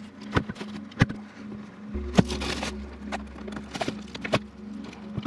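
Clicks and knocks of a hot tub pump being handled and its threaded pipe union started by hand, about six separate taps with the loudest a little after two seconds in, over a steady low hum.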